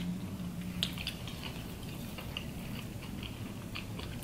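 Chewing and biting into fried popcorn shrimp, heard as soft, scattered mouth clicks and smacks, one a little louder about a second in.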